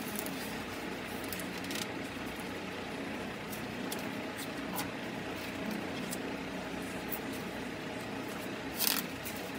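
Adhesive tape being handled and pressed onto a transformer coil bobbin: small scattered clicks over a steady low hum, with one short ripping sound near the end as tape is pulled off the roll.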